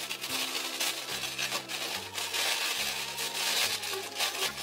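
Plastic mailer bag and wrapping rustling and crinkling as they are handled and pulled open, over background music.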